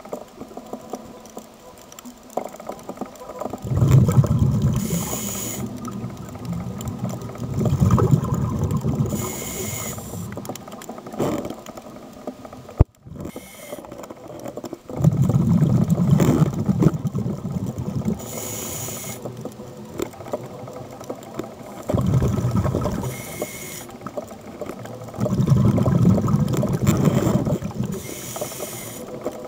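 Scuba diver breathing through a regulator underwater, heard five times: a short hiss on each inhale and a low rumble of exhaust bubbles on each exhale, about every five to six seconds. The sound drops out for an instant about halfway through.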